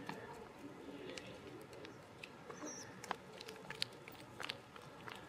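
Faint, irregular light taps and clicks of a Goffin cockatoo's feet pattering as she walks on a leash, with a brief high chirp about two and a half seconds in.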